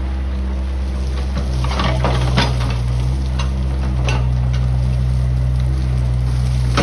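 Hydraulic excavator engine running steadily and picking up a little about two seconds in, with gritty crunching and rattling of crushed stone being scraped up by the bucket, loudest about two seconds in and again near the end.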